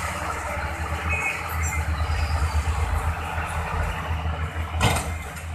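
Diesel engines of a tipping dump truck and nearby bulldozers running with a steady low rumble. Near the end there is a brief, loud burst of noise.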